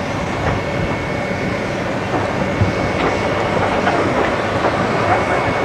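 A small locomotive and its train rolling past, the wheels clicking irregularly over the rail joints under a steady running noise.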